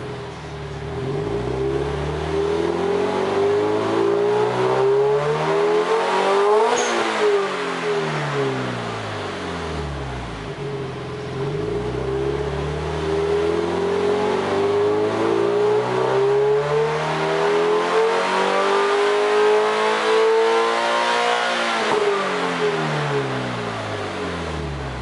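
Exhaust of a fully warmed Subaru Impreza WRX STI (GDB) with its 2.0-litre turbocharged flat-four, revved with no load while parked. The revs climb to a peak about seven seconds in and fall back, then climb slowly again to a second peak about twenty seconds in before dropping toward idle.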